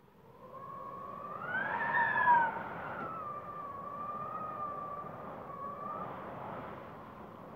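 Wind howling in a gust: a whistling tone over a rushing hiss swells and rises in pitch about two seconds in, then falls back and holds steady.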